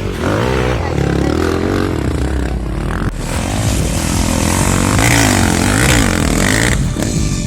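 Off-road motorcycle engines revving, their pitch rising and falling over and over, with a sudden break about three seconds in.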